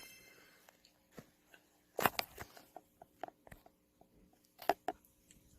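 Faint, scattered short clicks and taps in small groups, separated by near silence.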